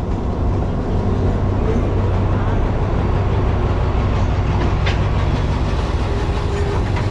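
Alsthom diesel-electric locomotive passing close by with its diesel engine running as a steady low drone, followed by passenger coaches rolling past on the rails, with one sharp click about five seconds in.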